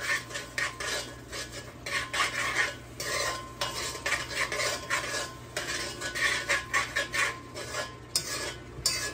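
A spoon stirring and scraping around the bottom of an aluminum pot in repeated strokes, with a light sizzle. The corn, tomato sauce and sofrito are cooking in hot oil and are stirred so they won't burn.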